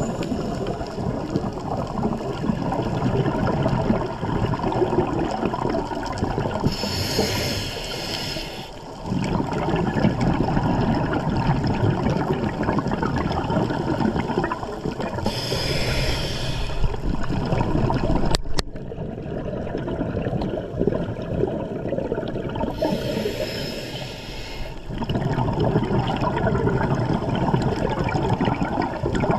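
Scuba diver breathing through a regulator underwater: a hissing rush of exhaled bubbles lasting about two seconds, three times roughly eight seconds apart, over a steady low rumble of water. A single sharp click about 18 seconds in.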